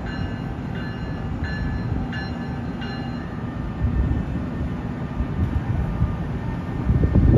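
Train rolling through the station with a steady low rumble. A short ringing tone repeats about every two-thirds of a second for the first three seconds, and the rumble swells louder near the end.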